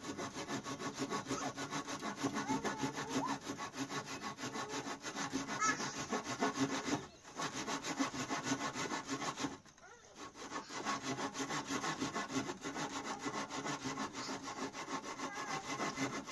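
A saw cutting through wood, going steadily, with two short pauses around the middle.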